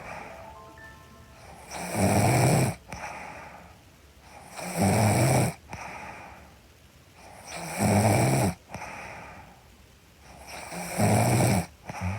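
A woman snoring in her sleep: four loud snores about three seconds apart, each trailing off into quieter breathing before the next.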